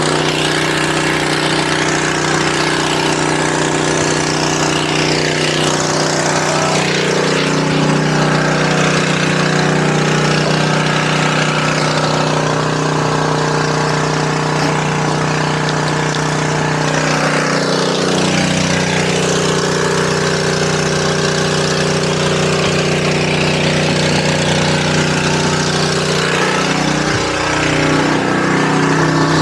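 Small gasoline engine of a portable pump running steadily while it pumps water out of a swamped boat, its pitch shifting slightly about six and about eighteen seconds in.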